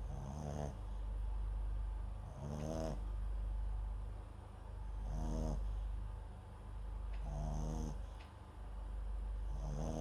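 Papillon–Japanese Chin mix dog snoring in its sleep close to the microphone: five short snores, about one every two and a half seconds, each with a thin hiss on top.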